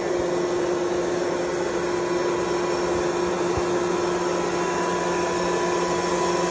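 Curtis Roots-style two-rotor air compressor, belt-driven by a 25 hp 480-volt electric motor, running steadily at full speed. It makes a constant whine over a rushing noise.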